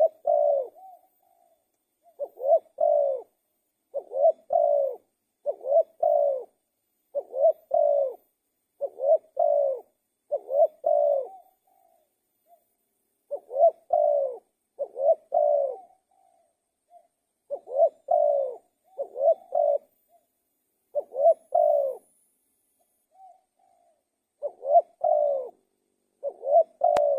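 Spotted dove cooing over and over, its coos coming in quick groups of two or three with a few short pauses between.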